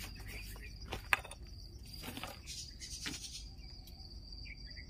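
Crickets trilling steadily in one high, unbroken tone, with a few brief rustles and a sharp tap about a second in.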